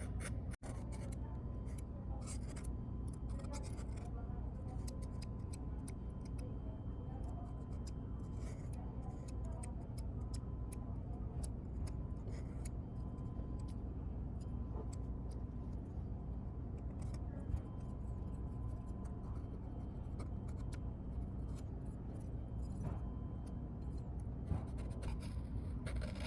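Metal tweezers and a plastic spudger picking at an iPhone 11 Pro Max's frame to clear debris: faint scattered clicks and scrapes over a steady low hum with a faint constant high tone.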